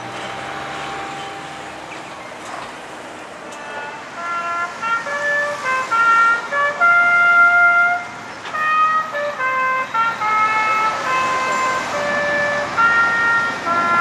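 The ringing of a tower clock's bell dies away, then about three and a half seconds in a tune begins from the clock tower: held notes, one at a time, stepping up and down in pitch, each lasting up to about a second.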